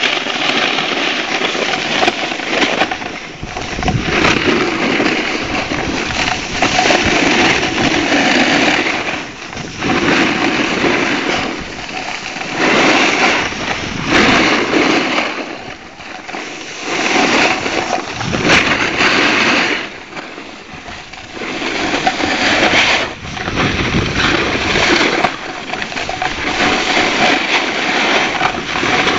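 Snow scraping and hissing under board and ski edges carving across hard-packed snow, swelling and fading every couple of seconds through a series of turns.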